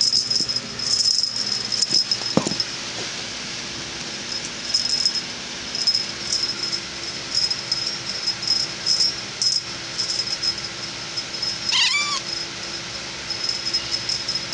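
A kitten gives one short, high mew about twelve seconds in. Under it, a high jingling or rattling comes and goes in short bursts.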